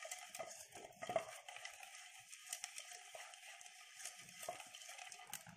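Silicone pastry brush spreading oil around the inside of a metal bowl to grease it: a faint soft brushing with small scattered ticks.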